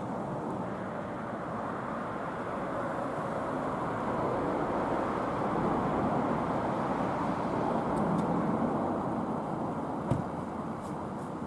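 Road traffic noise: a vehicle passing, louder in the middle and easing off, with one short sharp knock about ten seconds in.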